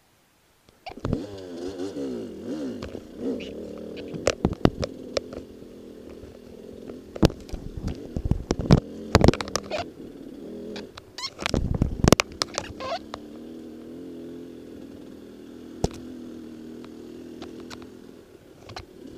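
Dirt bike engine running under way, its pitch rising and falling with the throttle, coming in about a second in after a brief silence. Frequent sharp knocks and clatter as the bike hits bumps on the rough trail.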